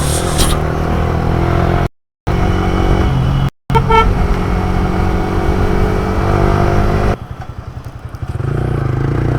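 Motorcycle engine running while riding in traffic, with a short horn beep about four seconds in. Around seven seconds in the engine drops to a slower, quieter, even beat for about a second before picking up again.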